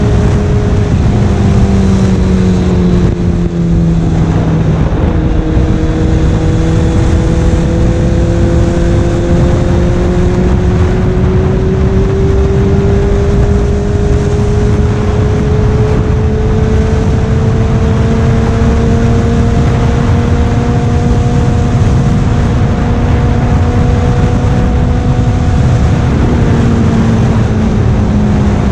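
Honda CBR1000RR-R's inline-four engine heard from the saddle while riding, with wind noise on the microphone. Its note drops twice in the first few seconds, climbs slowly for about twenty seconds, then drops again near the end.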